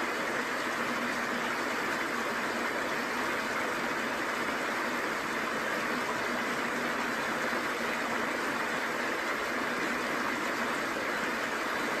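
Steady rush of a small waterfall and the mountain creek below it, an even splashing hiss with no breaks.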